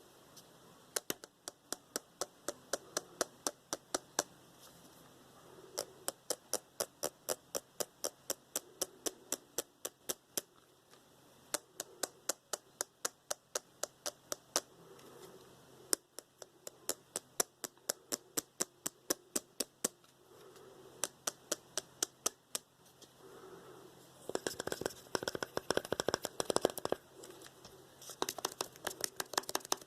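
Close-up ASMR tapping on a hard object, in quick runs of about four light taps a second broken by short pauses. In the last few seconds it turns into a denser, scratchy patter of rapid taps.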